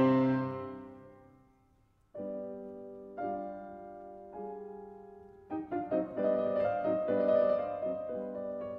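Background piano music. A chord fades out, there is a short pause about two seconds in, held chords follow, and from about five and a half seconds a quicker run of notes begins.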